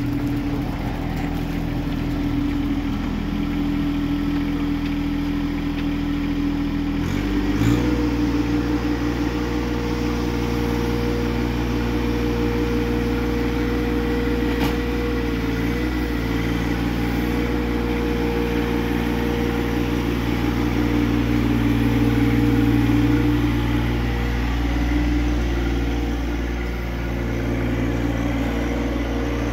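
A John Deere compact tractor's diesel engine running, throttled up about eight seconds in and then held at a steady higher speed as the tractor lifts and carries a load on its forks.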